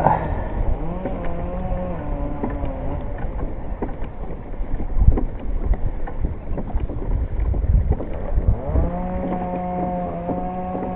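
A small engine revving up and holding steady in stretches of a second or two, about a second in and again near the end, with wind noise and a few low thumps in between.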